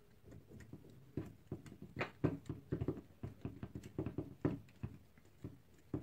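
Irregular light clicks and taps of a screwdriver and small metal parts being worked on an electric vacuum cleaner motor, a few sharper ones among them.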